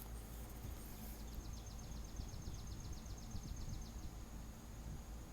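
Outdoor garden ambience: a low rumble of wind on the microphone under a steady high insect hum. From about a second in until four seconds, a rapid even train of high chirping clicks runs at about nine a second.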